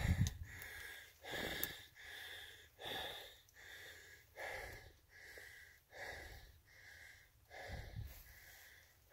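A person breathing hard, about one breath every second and a half, with a low thump at the start and another near the end.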